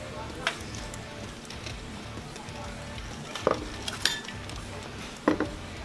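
Background music with a few sharp clinks of cutlery and dishes at a table, the loudest about three and a half seconds in and near the end.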